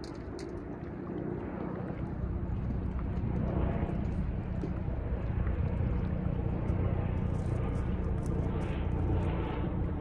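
Low, steady engine drone that swells about two seconds in and then holds.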